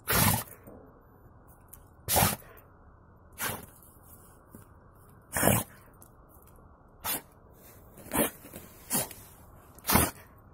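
A mixed-breed guard dog sneezing over and over: eight sharp sneezes, one to two seconds apart, some louder than others. Snow in its nose is setting off the sneezing.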